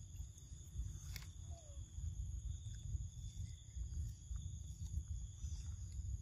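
Steady high drone of insects, with a low rumble underneath. There is a single sharp click about a second in and a faint short falling call just after.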